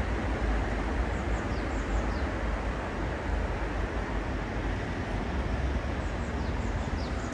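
Wind rumbling on the microphone, with a small bird's high, quick falling chirps in two short groups, about a second in and again near the end.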